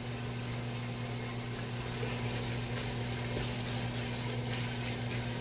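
Ground beef browning in a pot, sizzling and bubbling steadily, over a steady low hum.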